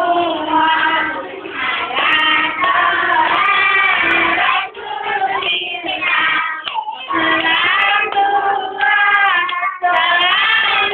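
Children singing a song, with music behind it.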